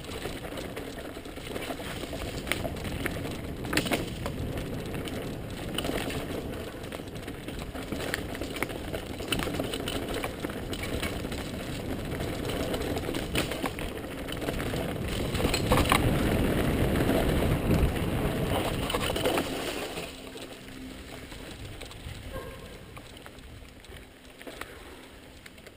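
Mountain bike rolling over a rough trail: a steady rumble of tyres and rattle with scattered sharp knocks, louder for a few seconds past the middle, then dropping quieter about three quarters of the way through.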